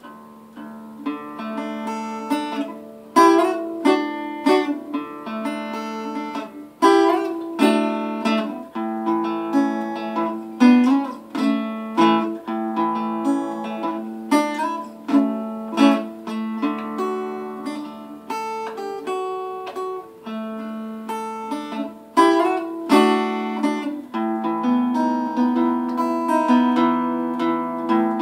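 Small acoustic travel guitar in drop D tuning, played with an oversized pick: a run of picked single notes and chords with sharp attacks, turning denser and more strummed near the end.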